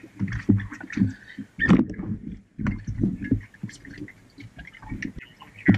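Irregular knocks and dull thumps from a diver in a wetsuit climbing up the side of a dive boat, with gear and body bumping the hull and ladder.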